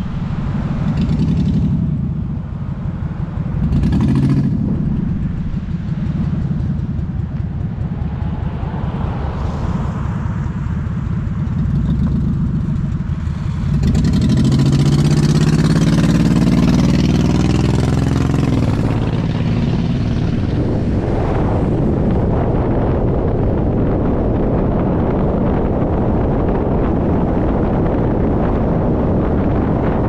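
Car driving along a street, its engine and tyre noise mixed with wind buffeting the microphone. The engine note swells briefly a couple of times early on, rises again for several seconds about halfway through, then settles into a steady rush of road and wind noise.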